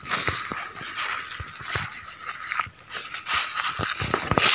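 Footsteps crunching and crackling through dry leaf litter and twigs, a stream of irregular sharp crackles over a steady high hiss.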